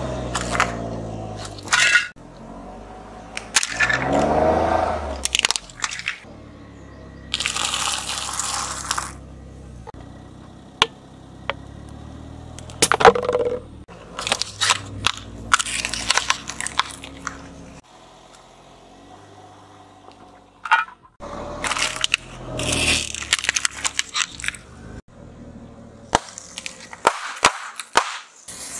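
A series of objects, among them aerosol spray-paint cans and plastic items, being crushed under a slowly rolling car tyre: repeated cracks, crunches and snaps, with a burst of hissing about seven seconds in and the car's engine running low underneath.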